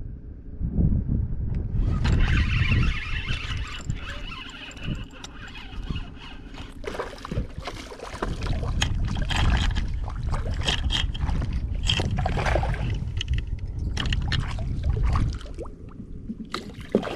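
Wind buffeting the microphone as a rough, uneven rumble, with water sloshing and splashing close by.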